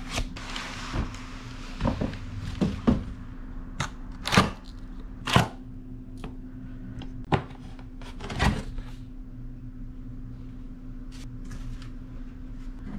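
Cardboard boxes being handled: the aquarium's retail box is shifted and set about, with brushing scrapes and a string of sharp knocks and thumps through the first nine seconds, then only a couple of light taps. A steady low hum runs underneath.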